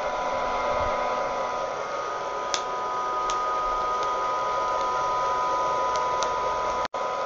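Hot-air popcorn popper (Wear-Ever Popcorn Pumper) roasting coffee beans: its fan and heater blow with a steady rush and a whine, while a few sharp cracks pop from the beans during first crack, the loudest about two and a half seconds in. The sound drops out for an instant near the end.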